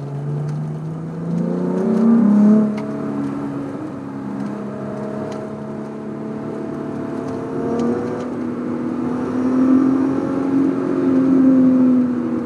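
Volkswagen Corrado's VR6 engine, heard from inside the cabin while driving. The revs climb steeply over the first couple of seconds, then the engine runs on at a steadier, slowly rising pitch and grows louder again near the end.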